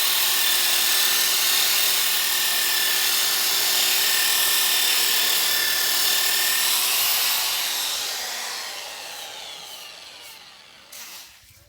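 Electric power tool fitted with a 125 mm 150-grit sanding disc, running with a steady whine as it sands wood. About seven seconds in it is switched off, and its pitch falls as the motor winds down.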